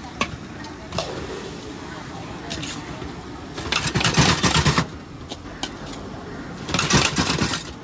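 Busy street background of traffic and distant voices, with scattered clicks and two louder harsh noises, each about a second long, a few seconds apart.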